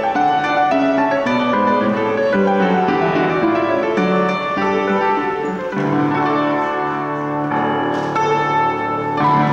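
Scottish country dance music: a steady melodic tune with a prominent piano, shifting to lower, longer-held notes about six seconds in.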